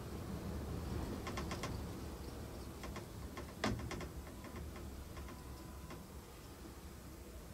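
Scattered light clicks and ticks in quick little groups, with one sharper click about three and a half seconds in, over a low steady rumble.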